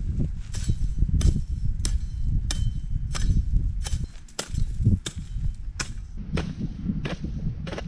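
A hand-swung blade slashing through dry weeds and dead vines, a sharp swish-and-cut about every half second, around a dozen strokes. A steady low rumble runs underneath.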